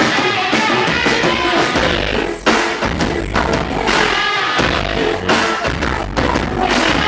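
Noise-pop band playing live, loud and dense. There is a brief break a little over two seconds in, after which a heavy bass-driven beat comes in.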